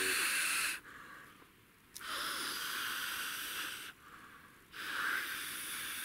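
A person breathing close to the microphone: three long, hissing breaths with short pauses between them.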